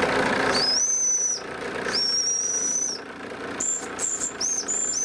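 Small steam whistle on a live steam model locomotive blowing: two high-pitched toots of just under a second each, then several shorter, slightly higher toots. A steady rushing noise underneath drops away about a second and a half in.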